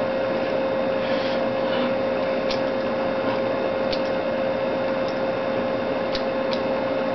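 Steady background hiss with a steady hum tone running under it, and a few faint ticks scattered through.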